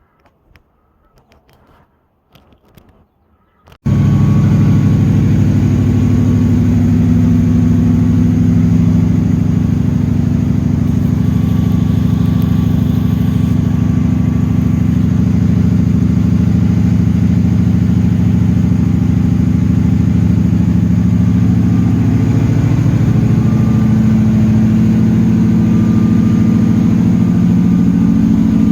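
A vehicle engine running steadily at idle, cutting in suddenly about four seconds in after a few faint clicks.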